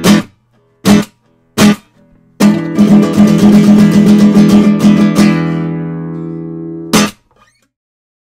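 Acoustic guitar playing the song's closing bars: a few short, cut-off strummed chords, a burst of fast rhythmic strumming, a chord left to ring and fade, and a final sharp strum about seven seconds in that ends the song.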